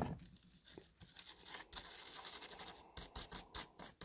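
Faint, quick scrubbing strokes on a circuit board, about four a second, cleaning leftover flux off with isopropyl alcohol.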